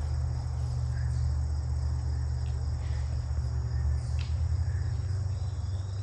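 Steady high-pitched buzzing of late-summer woodland insects, over a steady low rumble on the microphone, with a few faint clicks.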